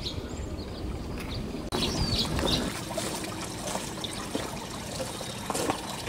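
Water trickling and splashing from a small solar-powered garden fountain pump, with small birds chirping.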